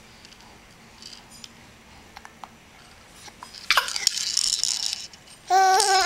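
About a second and a half of loud rattling from a small handheld object being shaken or handled, then a short high squeal from the baby that rises in pitch as it ends.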